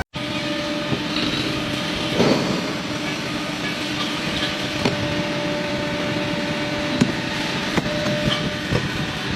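Welding arc crackling and hissing steadily, with a few sharp pops and a faint steady hum underneath.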